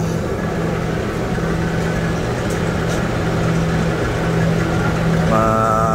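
Vacuum pump running steadily with a low hum, evacuating a small refrigeration system through the gauge manifold.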